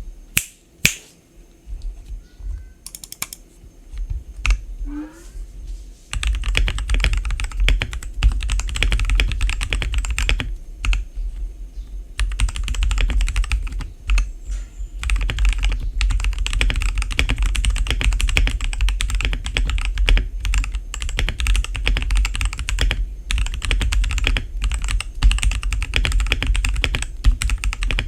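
Typing on a Royal Kludge RKG68 mechanical keyboard with lubed, filmed RK red linear switches, clipped and lubed stock stabilizers, foam dampening and stock keycaps. A few separate key presses come first, then steady fast typing from about six seconds in, broken by a few short pauses.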